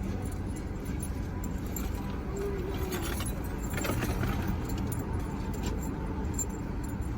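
Steady low rumble of a car idling, heard inside the cabin, with light metallic jingling and clicks about three to four seconds in.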